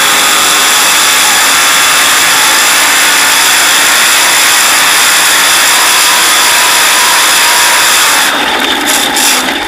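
Light modified pulling tractor's V8 engine running flat out under load during a pull, heard very loud and close from an on-board camera so that it overwhelms the microphone as a dense, steady wall of noise. About eight seconds in the sound starts to waver and break up in short gaps.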